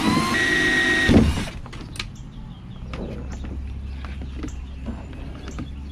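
Black & Decker drill running as it bores into the kayak's plastic hull, its pitch rising, then stopping about a second and a half in. After it come quieter scattered clicks and rustles of wires being handled and fed through the drilled hole.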